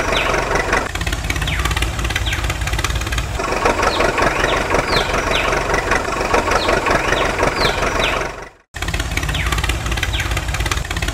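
Tractor diesel engine running with a steady low chugging. It cuts out abruptly about eight and a half seconds in and starts again a moment later.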